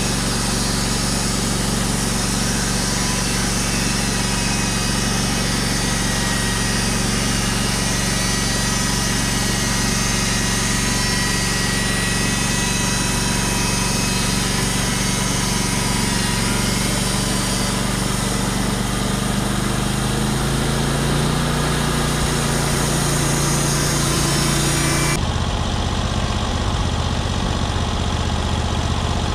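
Engine-driven sawmill running steadily while sawing a cedar log. About 25 seconds in, the high hiss stops abruptly and the engine note changes, running on at a lower, steadier pitch.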